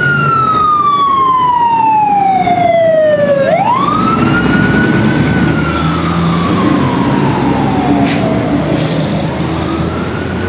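Fire truck siren wailing as fire engines pass by. The pitch climbs quickly and falls slowly, twice, with a third, fainter rise near the end as it fades. Truck engine rumble runs underneath.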